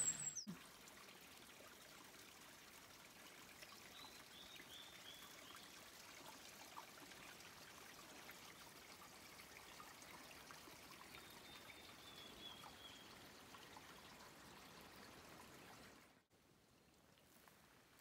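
Very faint, even trickle of a small mountain stream with a brief run of high bird chirps about four seconds in and a thin bird call around twelve seconds. The sound drops away almost to nothing near the end.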